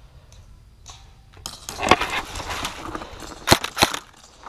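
Loose gravel crunching under a player shifting and moving, then two sharp clicks about a third of a second apart near the end.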